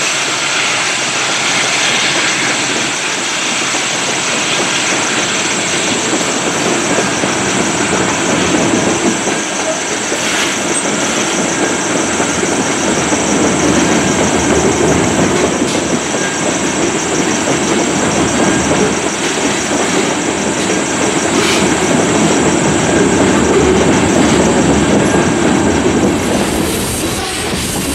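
Loaded freight train of covered hopper cars rolling past, with a steady clatter of steel wheels over the rails.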